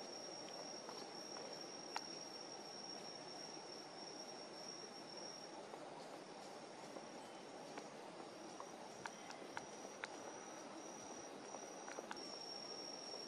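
A night insect, cricket-like, singing one thin, high, unbroken trill that breaks into short pulses about halfway through. It sits faintly over a steady low background noise, with a few soft clicks.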